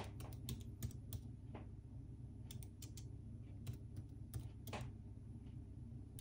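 Typing on a white Apple Magic Keyboard: faint, irregular key clicks in small clusters, over a low steady hum.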